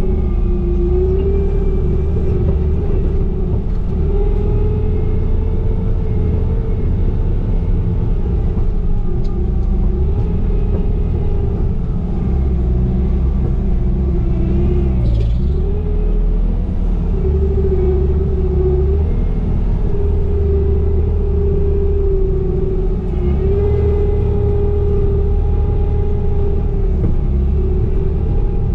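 Diesel engine of a Bobcat compact machine running steadily under working load. Its pitch wavers slightly and dips briefly about halfway through.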